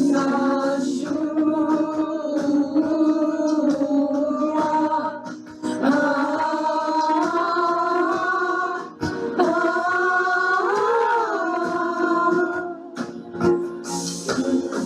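Worship song: voices singing long held notes that move in steps, over instrumental accompaniment, with a wavering note about two thirds of the way through.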